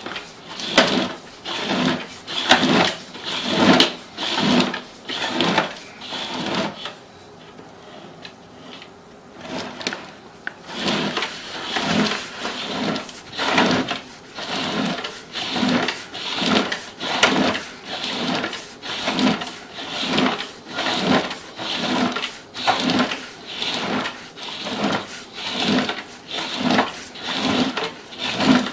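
Sewer inspection camera's push cable being fed hand over hand down the sewer line: a regular run of rattling strokes about one a second, pausing for a few seconds about a quarter of the way in and then resuming.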